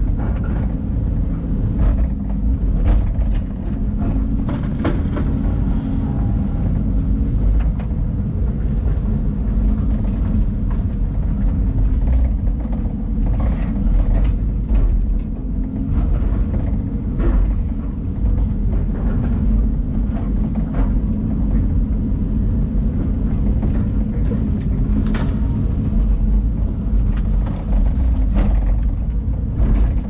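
LiuGong excavator's diesel engine and hydraulics running under work, heard from inside the closed cab as a steady low drone. Scattered short knocks and cracks come through it as the machine handles pine logs and brush.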